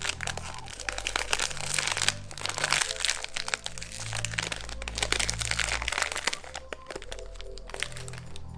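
Plastic packaging crinkling and crackling as it is handled and opened, over background music; the crinkling stops about six seconds in.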